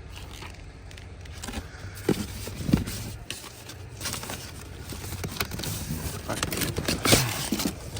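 Handling noise during hands-on work: scattered clicks, knocks and scrapes, with a few sharper knocks about two to three seconds in and near seven seconds, over a steady low hum.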